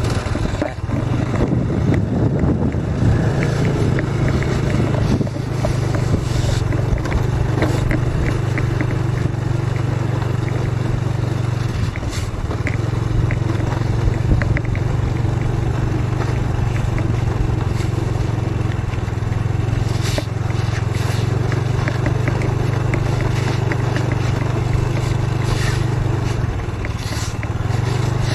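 A vehicle's motor running steadily while being driven over rough ground, with rattles and scrapes. The hum eases briefly about twelve seconds in and again near the end.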